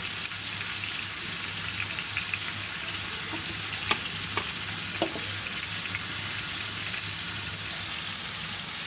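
Marinated chicken pieces frying in hot oil in a karai, a steady sizzle with a few sharp ticks around four to five seconds in.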